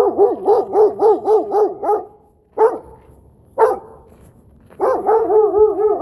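A dog barking in fast runs of about three to four barks a second, with two single barks between the runs.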